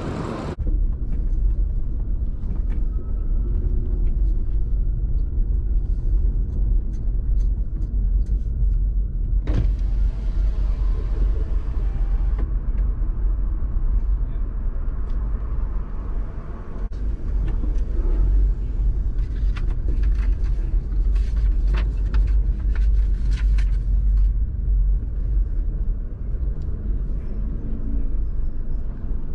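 Low, steady rumble of a car driving slowly, heard from inside the cabin, starting about half a second in, with a few faint clicks here and there.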